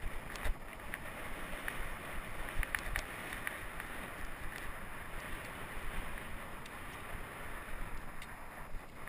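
Mountain bike ridden fast over a bumpy grass and dirt track: steady wind noise on the microphone with tyre rumble and scattered rattling clicks from the bike over the bumps.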